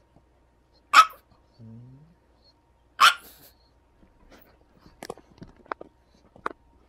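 Pug barking in a temper tantrum: two sharp single barks about two seconds apart, with a short low grunt rising in pitch between them, then a run of small scuffling sounds as she thrashes on the rug.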